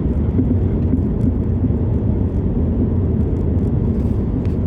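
Cabin noise of a Skoda Octavia on the move: a steady low rumble of tyres and engine, with faint scattered ticks. The owner hears creaking and clunking from the front left on this drive, typical of a worn anti-roll bar drop link.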